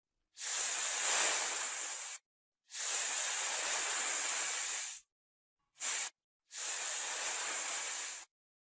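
Snake hissing: four separate hisses, three long ones of about two seconds each and a very short one in between, with dead silence between them.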